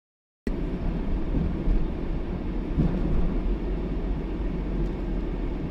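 Road and engine noise inside a moving car: a steady low rumble that cuts in abruptly about half a second in, after a moment of total silence.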